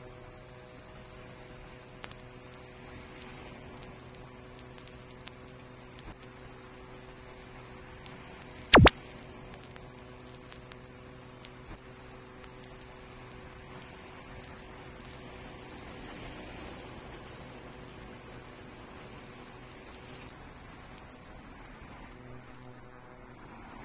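Japanese conehead katydid (Euconocephalus thunbergi) singing: a continuous, very high-pitched buzz, broken twice by brief drop-outs. There is a single sharp click about nine seconds in and a faint low hum underneath.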